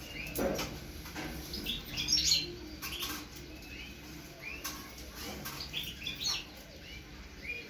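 Caged birds chirping, many short calls from several birds.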